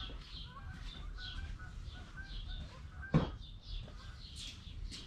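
Small birds chirping over and over, a few short calls a second, with one sharp knock about three seconds in.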